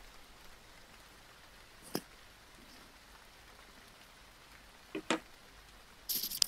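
Faint steady hiss broken by a sharp click about two seconds in, a quick double click about five seconds in, and a brief rustle near the end: a phone being handled and adjusted as a video call connects.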